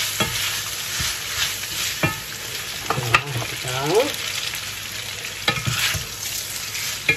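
Spaghetti being tossed with a wooden spoon in a pan of mushrooms frying in oil and butter: a steady sizzle, with the spoon knocking against the enamelled pan a few times.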